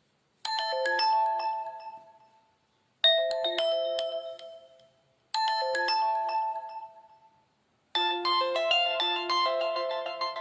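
Nokia Lumia 520 playing its preloaded phone tones: three short chiming melodies, each fading out within about two seconds, then a longer ringtone melody that starts about eight seconds in and keeps going.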